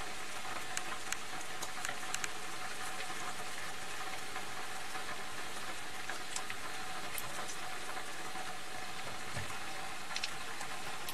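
Bacon sizzling in a skillet on a wood stove: a steady frying hiss with scattered small pops of spattering fat.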